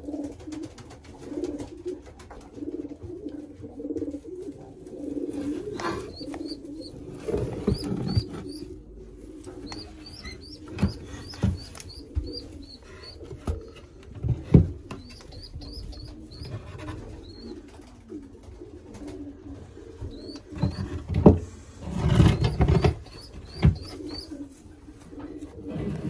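Pigeons cooing in a loft, with groups of short high chirps through the middle and near the end, and scattered knocks and rustles from hands working in the wooden nest boxes and clay nest bowls.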